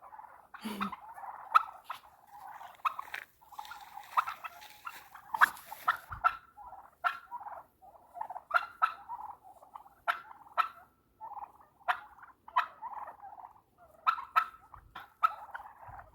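A flock of domestic turkeys calling over and over in short, sharp notes: the nervous calling of agitated birds.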